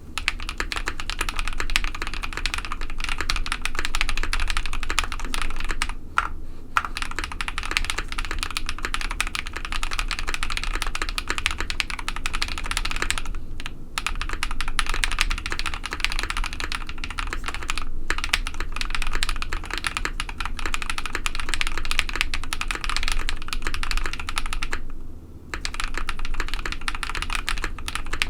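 Continuous fast typing on a KBD67 Lite R2 mechanical keyboard with lubed KTT Strawberry linear switches on a polycarbonate plate, the keys giving a poppy sound with some spring ping. The typing pauses briefly a few times, near a quarter of the way through, about halfway and near the end.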